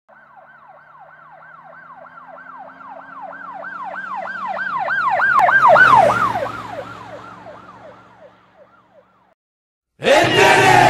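Emergency vehicle siren in a fast yelp, about three sweeps a second, growing louder as it approaches, dropping in pitch as it passes, then fading away. About ten seconds in, loud rock music cuts in.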